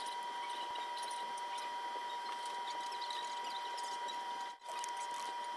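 A steady, high-pitched whine over a faint hiss, with a brief dropout about four and a half seconds in.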